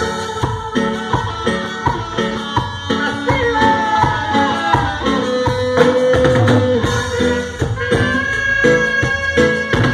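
Live dance band playing an instrumental passage through the PA: the saxophone section holds long notes over a drum kit and percussion beat.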